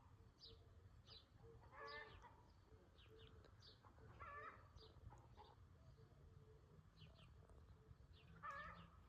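Faint bird calls: a few short, harsh calls a couple of seconds apart, with brief high chirps in between.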